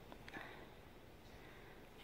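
Near silence, with two faint clicks near the start.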